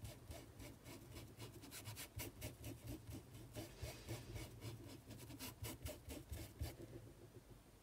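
Paintbrush scrubbing paint into fabric in quick, faint, scratchy strokes that stop about seven seconds in.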